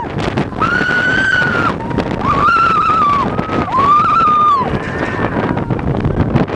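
Roller coaster riders screaming in three long, high cries, each about a second and dropping in pitch at its end, with a fainter fourth near the end, over the rumble of the coaster train on its track and wind on the microphone.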